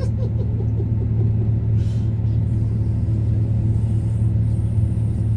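Tractor engine running steadily with an even, low hum.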